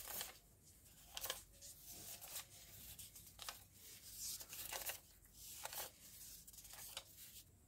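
Faint rustling of paper slips being handled, in a string of short, irregular rustles.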